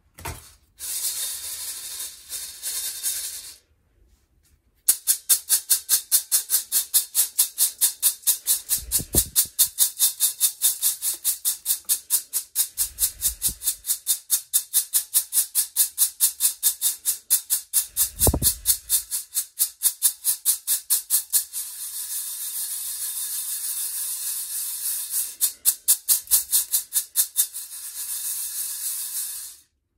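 Freshly roasted coffee beans rattling against a stainless-steel perforated colander as it is shaken in quick, rhythmic shakes, then swirled in a steadier rattle near the end; the beans are being shaken free of their papery chaff after roasting.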